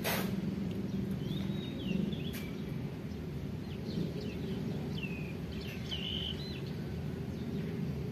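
Steady low background noise with small birds chirping now and then, a handful of short high chirps in the first half and again past the middle. A sharp click at the very start.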